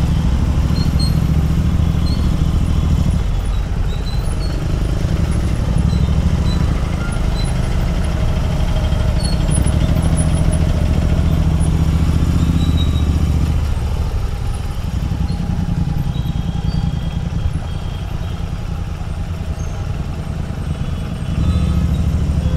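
Royal Enfield Continental GT 650's parallel-twin engine running with a deep, steady exhaust rumble as the motorcycle creeps through traffic. The rumble eases off for several seconds past the middle and picks up again near the end.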